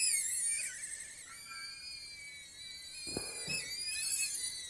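BetaFPV Cetus micro FPV drone's motors and props whining at a high pitch, the pitch shifting with throttle as it descends to land on a low battery. A short bump of noise about three seconds in.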